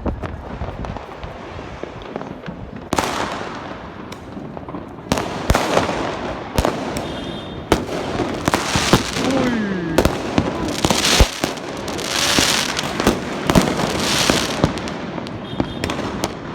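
Many fireworks and firecrackers going off, sharp bangs at irregular intervals, some loud and some faint, with bursts of crackling hiss that grow thicker from about eight seconds in.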